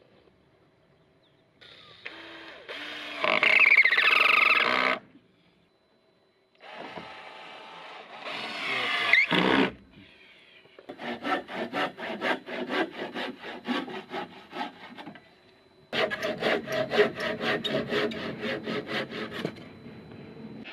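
A cordless drill-driver runs in two bursts of a few seconds each, its motor pitch sweeping up and down as it drives screws into wooden slats. Then a hand saw cuts through a wooden slat with quick, even strokes, in two bouts.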